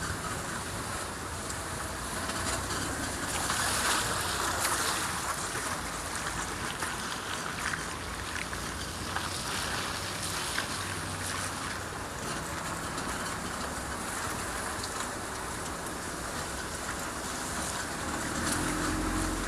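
Car on the move: steady road and wind noise, with a few faint short ticks and knocks around the middle.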